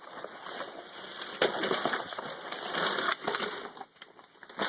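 Plastic trash bag rustling and crinkling as it is handled and pulled open, loudest in the middle.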